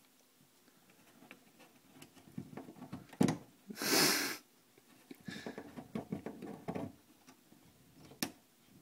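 A cat biting and gnawing at the bottom edge of a wooden door, with soft scuffing and sniffing and two sharp knocks of teeth or paw on the door, about three seconds in and near the end. About four seconds in there is a short, loud breathy rush.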